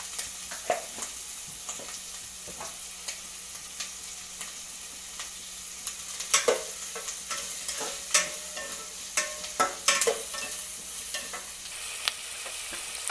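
Sliced onions sizzling in butter in an enamel pot, being sautéed to soften, with a spatula stirring them and scraping and knocking against the pot, the knocks most frequent from about six to ten seconds in.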